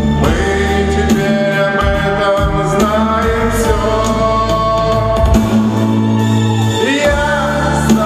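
A man singing a Russian pop ballad into a handheld microphone, holding long notes over musical accompaniment.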